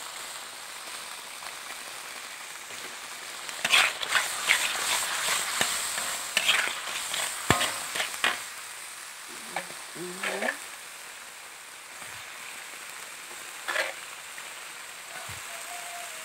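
Red chili paste frying in hot oil in a wok, a steady sizzle, with a slotted spatula stirring and scraping against the pan in bursts through the middle and a few single strokes later. This is the paste being sautéed before the noodles go in.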